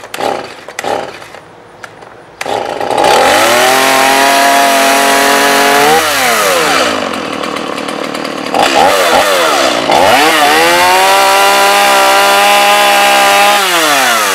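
STIHL MS 180 two-stroke chainsaw being pull-started: a few tugs on the starter cord, then the engine catches on the fast-idle start setting about two and a half seconds in. It runs fast and high, drops to a lower idle around six seconds, revs high again about ten seconds in, and winds back down near the end.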